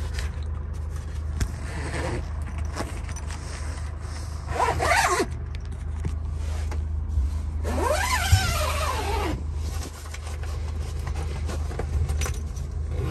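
Zipper on the fabric pop-up roof tent being pulled, twice: a short run about five seconds in, then a longer run near the middle whose buzz rises and then falls in pitch. A steady low hum runs underneath.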